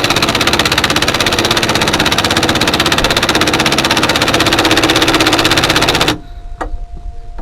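Impact wrench hammering continuously as it runs bolts in, then cutting off suddenly about six seconds in, followed by a few light clicks.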